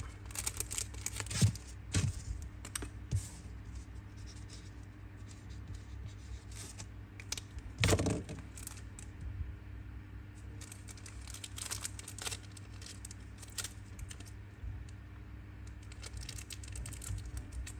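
Zippo lighters being handled: scattered small metal clicks and taps, with one louder knock about eight seconds in, over a steady low hum.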